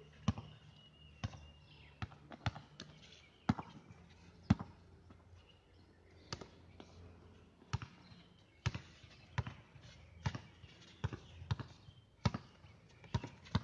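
Basketball being dribbled and bounced on an outdoor hard court during a pickup game: sharp, separate bounces at an uneven pace, roughly one a second with some quicker pairs, the loudest about four and a half seconds in.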